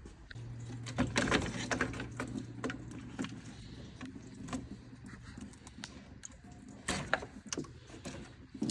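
Small hard objects being handled: scattered clicks, clinks and rattles, busiest about a second in and again around seven seconds, over a steady low hum.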